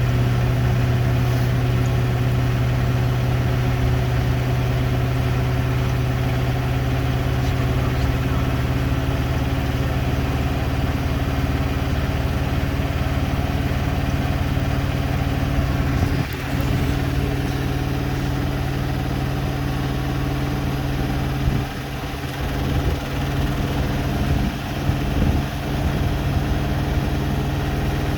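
Hoover Nextra Iconic and Beko WDER washing machines in their final high-speed spin: a steady hum over the rush of the spinning drums. The level dips and wavers briefly a few times in the last third.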